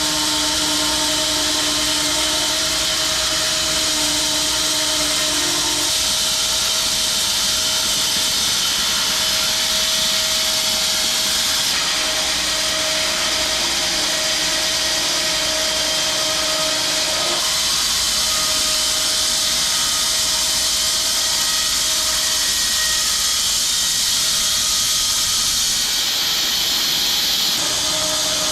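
Home-built 6 ft wide bandsaw mill running steadily through a log: a continuous hiss with a steady machine hum underneath.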